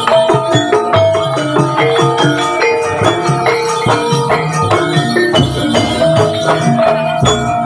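Javanese gamelan music of the kind played for kuda lumping: tuned metal percussion ringing out a melody over a steady run of drum strokes and low thuds.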